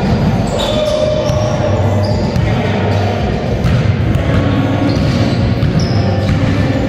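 Pickup basketball game in a large sports hall: sneakers squeaking on the court several times, with the ball bouncing and players' running footsteps.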